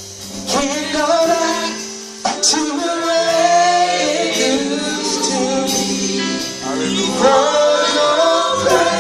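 Gospel choir and lead voices singing with instrumental accompaniment, sustained chords under the voices and a sharp percussive hit a couple of seconds in.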